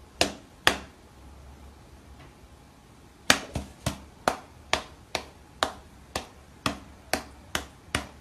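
Sharp taps, two near the start and then a steady run of about two a second from about three seconds in, each with a brief ring, as a hand and a cat's paws pat at each other.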